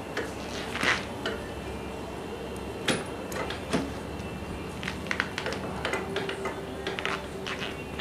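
Scattered light clicks and knocks of metal parts handled at a motorcycle's rear wheel and brake caliper, with a sharper clack about three seconds in and a run of small clicks near the end.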